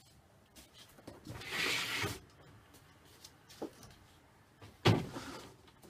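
Plastic bread crates being handled and stacked: a brief scraping rustle about a second and a half in, a few light clicks, then one sharp knock near the end as a crate is set down on another.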